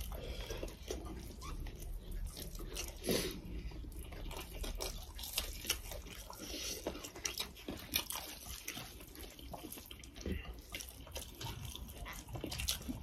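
Close, wet eating sounds: chewing and lip smacks, with fingers squishing and mixing rice and curry, in many small irregular clicks.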